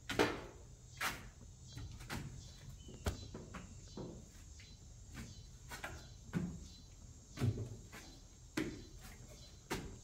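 Footsteps climbing bare plywood stair treads, a wooden thud with each step, roughly one a second.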